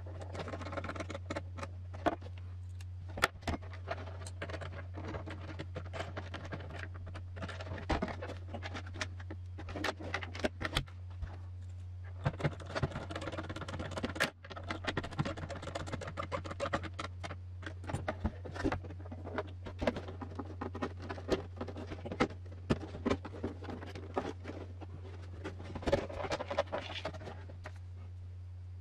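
Small screws being driven by hand into a plastic RC truck body, with irregular clicks, ticks and scrapes of the driver tip, screws and plastic parts. A steady low hum runs underneath.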